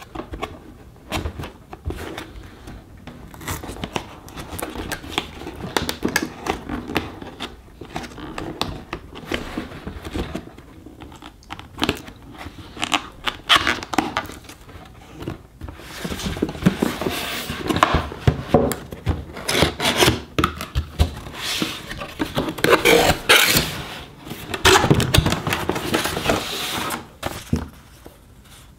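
Cardboard packaging being opened and handled by hand: box flaps and card inserts scraping and rubbing in irregular strokes, getting louder and busier about halfway through, with paper leaflets handled near the end.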